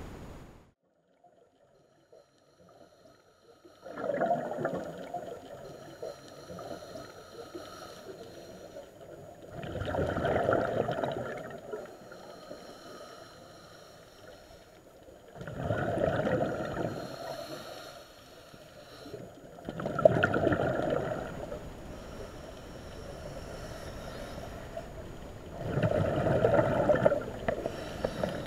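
Scuba diver's exhaled breath bubbling out of the regulator, heard underwater: five gurgling bursts about every five to six seconds, starting about four seconds in, with quieter water noise between.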